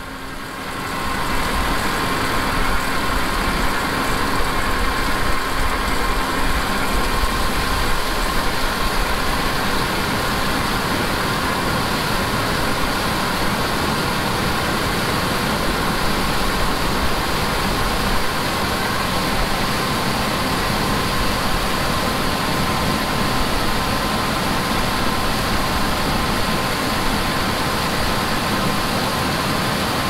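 Heavy harvest machinery running steadily in the field: a combine harvester and a tracked tractor give a continuous engine and machinery drone, with a faint steady whine running through it. The sound comes up to full level about a second in.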